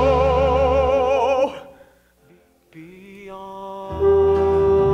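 Theatre musical accompaniment: sustained notes with vibrato over a steady bass, dying away about a second and a half in to a short near-silent gap, then coming back softly and swelling again about four seconds in on a long held note.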